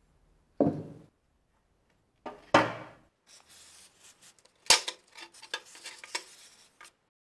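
Metal handling sounds from the rusty axe head: a knock, a second knock with a short ring-out, and a sharp clank, then scraping and light clinking of metal on a hard surface.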